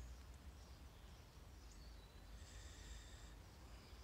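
Near silence: quiet garden ambience with a low wind rumble on the microphone and a short, faint bird call about two and a half seconds in.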